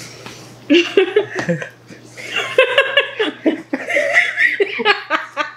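A person laughing in three bursts of quick, repeated high-pitched ha-ha pulses.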